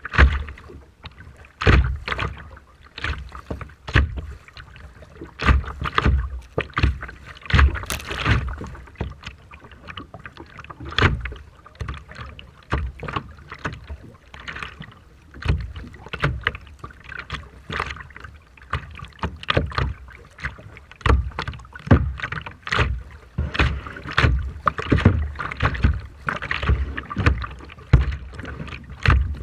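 Rough sea water splashing and slapping in irregular hits, one after another, with wind gusting on the microphone.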